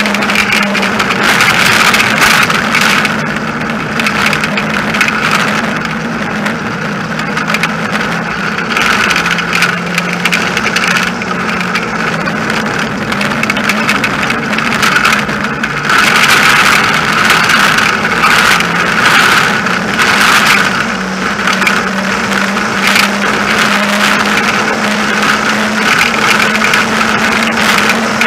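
Engineless soapbox gravity racer rolling fast downhill on asphalt: a steady roar of wheels and rushing air with a low hum that wavers in pitch, and scattered short rattles and knocks over the road's bumps.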